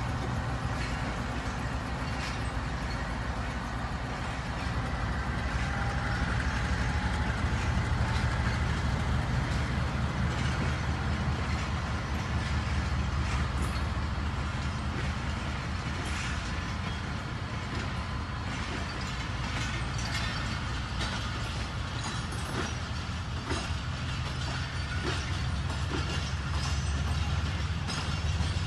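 Diesel locomotive engine running with a steady low drone as the train moves off. Sharp clicks of wheels over rail joints come in from about halfway.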